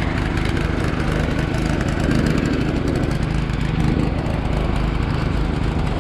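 Municipal suction tanker truck's engine and pump running steadily, drawing water up through a hose.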